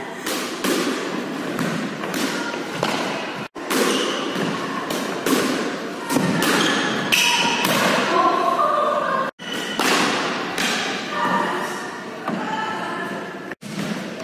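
Squash ball being hit with a racket and striking the walls and wooden floor of a squash court: a run of sharp knocks, each ringing briefly in the court's echo. The sound cuts out to silence for a moment three times.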